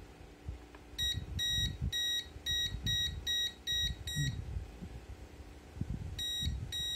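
Aneng M118A digital multimeter's non-contact voltage (NCV) beeper sounding a quick series of short, high beeps, two to three a second, as it is held against a mains cable: the signal that it senses live voltage in the wire. The beeping stops about four seconds in and starts again near the end.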